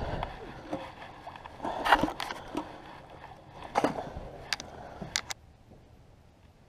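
Handling clatter as a crappie goes into a wire fish basket hung on a rope: rustling with several sharp knocks and rattles, the loudest about two seconds in, stopping suddenly a little over five seconds in.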